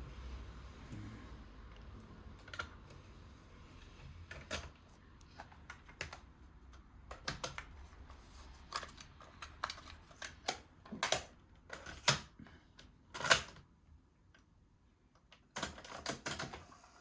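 Irregular clicks and clacks of small hard parts being handled, a few at a time, growing busier as it goes on, with the loudest clack about three-quarters of the way through.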